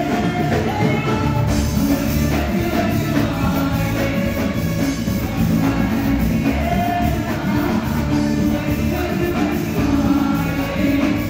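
Live band music played loud through a hall's sound system, with a woman singing into a microphone over it.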